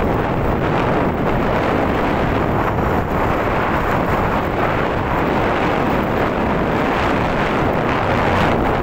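Loud, steady wind noise buffeting the microphone, an even rushing that does not change.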